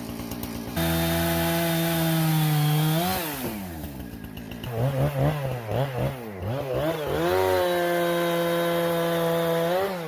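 Chainsaw engine revved to full throttle and held about two seconds, dropping back, then blipped up and down several times before being held at full throttle again and let fall back near the end.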